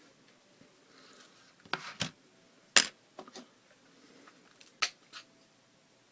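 A handful of sharp clicks and taps from objects being handled, at irregular intervals, the loudest about three seconds in.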